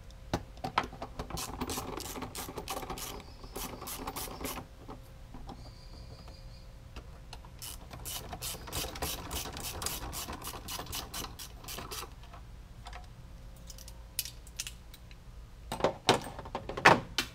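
Socket ratchet wrench clicking in two long runs of rapid clicks as bolts are driven in during reassembly, then a few louder sharp knocks near the end.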